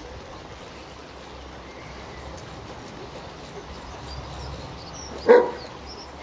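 A large dog gives a single short bark about five seconds in, during rough play with two other dogs.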